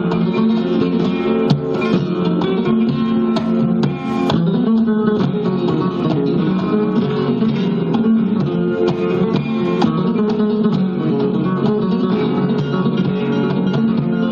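Flamenco guitar playing, with many quick plucked notes and chords.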